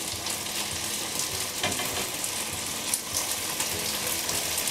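Glutinous rice sizzling in a frying pan as it is stirred with a wooden spatula: a steady hiss with occasional light scrapes and clicks.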